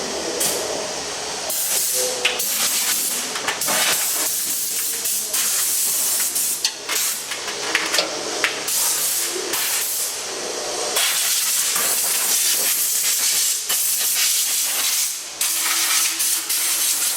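Hino EF750 16.7-litre twin-turbo diesel engine running, heard close up as a loud, dense hiss with scattered clicks and brief uneven dips. The seller lists this engine as having an abnormal noise and uneven running.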